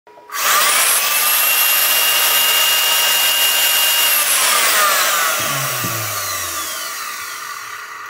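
Vacuum cleaner motor powered up from the bench supply: it spins up within a second to a steady high whine, then, after power is cut about four seconds in, coasts down with the whine falling steadily in pitch and fading.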